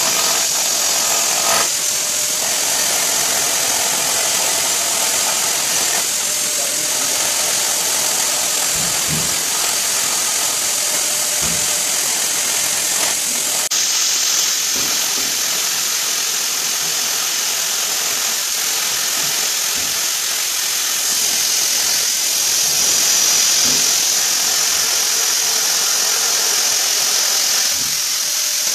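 Corded electric drill running steadily, its hole-saw bit grinding through a ceramic tile.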